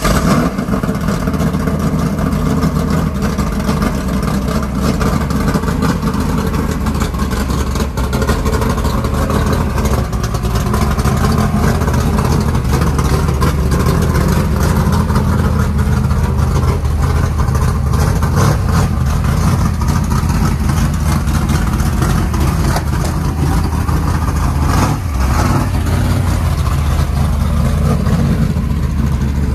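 Dirt-track factory stock race car's engine, just started, running loud and steady at low speed as the car is driven down off a trailer.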